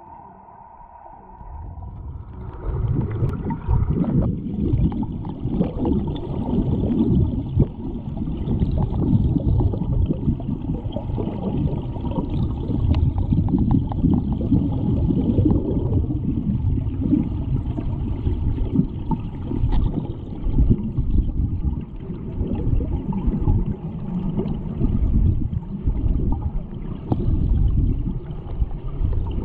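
Muffled underwater rumble and gurgling of water moving against a submerged camera in a swimming pool, unsteady and low-pitched. A steady tone fades out in the first second or two.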